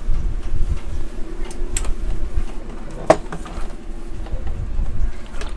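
Low rumble of handling noise on the microphone as the camera is moved, with a few light clicks and knocks as multimeter test leads and cords are handled; the sharpest click comes about three seconds in.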